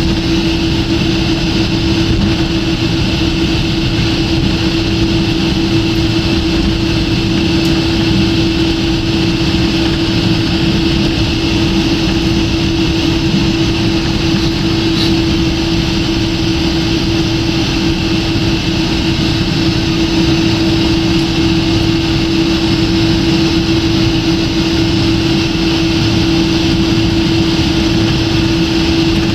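Steady cabin noise of a jet airliner in flight: an even rush of airflow and engine noise with a steady droning hum running underneath, unchanging throughout.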